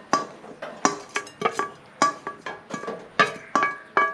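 A spoon tapping and scraping on a stainless steel plate, knocking chopped green chillies off into a bowl; each of the quick, uneven taps makes the plate ring briefly.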